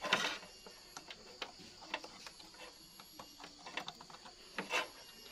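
Irregular light clicks and ticks, with two louder brief rasping bursts, one near the start and one about four and a half seconds in, over a faint steady high hiss.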